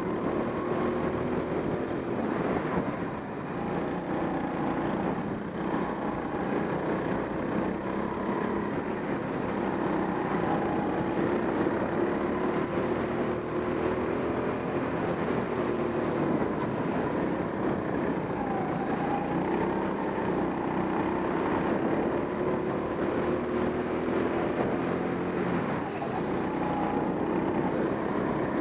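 Racing go-kart engine heard from on board, running hard through laps of an indoor track. Its pitch rises and falls with the throttle, dropping briefly a few times as it slows for corners.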